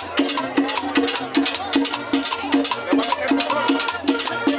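Cumbia band playing, with a steady, even beat of hand percussion and a repeating bass line.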